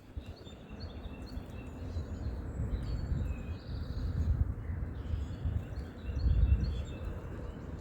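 Wind rumbling on the microphone, rising and falling, with small birds chirping now and then.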